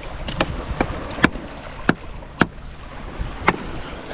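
A small fishing boat riding at sea: a steady low rumble of water and wind, broken by about seven sharp, irregular knocks.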